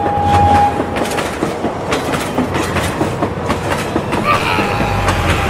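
Toy battery-powered steam locomotive running along plastic track, with a steady motor rumble and irregular clicking and rattling of the wheels over the track. A short steady tone sounds near the start.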